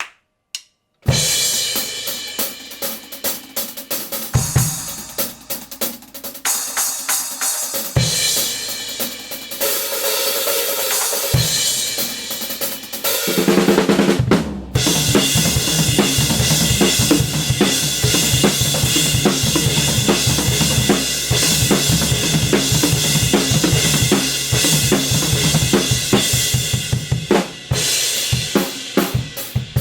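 Drum kit played with hand-hammered Kingdo Artist Modern B20 bronze cymbals. It starts about a second in with spaced cymbal crashes over bass drum hits, each left to ring. About halfway it breaks briefly into a steady groove under a continuous wash of ringing cymbals.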